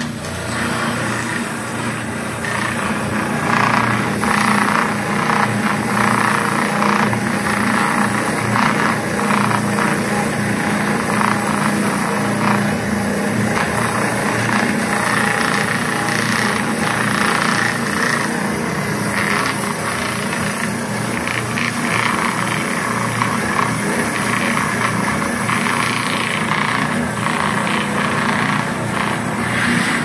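Wire brush wheel spinning on an old electric motor, scrubbing rust and buildup off a steel bandsaw blade drawn beneath it. A steady motor hum runs under a continuous scratchy rasp of wire bristles on steel that varies as the blade is pulled through. This cleans the blade ahead of setting and sharpening.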